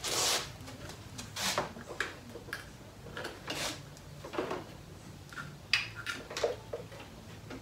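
Irregular clatter of hands working on a motorcycle: short knocks, clicks and scraping rustles of parts and tools being handled, about a dozen in all, the loudest one just before six seconds in.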